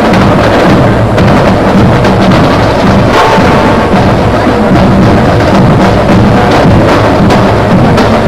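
Loud music with a steady drum beat and bass.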